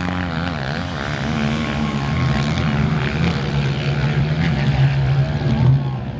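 Fox-body Ford Mustang GT's V8 engine running at low speed as the car rolls past. Its pitch wavers for about the first second, then settles into a steady drone.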